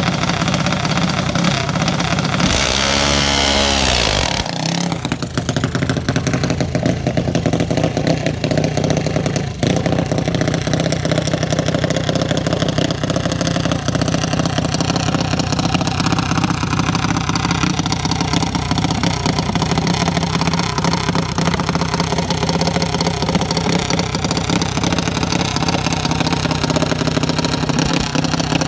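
Junior dragster's single-cylinder engine running steadily at idle, with a loud two-second surge of revving and rushing noise about two and a half seconds in as the car pulls away.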